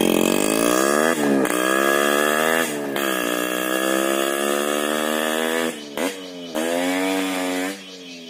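Yamaha RX 100's single-cylinder two-stroke engine with a modified RD-style muffler, accelerating hard through the gears. Its pitch climbs and drops back at each of three gear changes, then the sound falls away near the end as the bike rides off.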